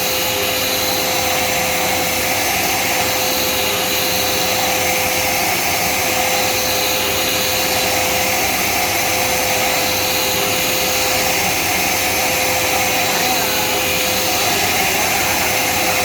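Automatic CNC bead-sieve drilling machine running: a steady motor whir with a constant hum underneath.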